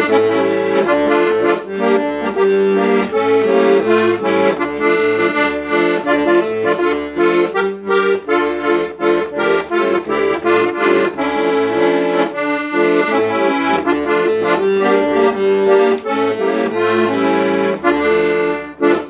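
Weltmeister Amigo piano accordion playing a folk tune, the melody on the keyboard over a steady pulse of bass and chord buttons. The playing stops just at the end.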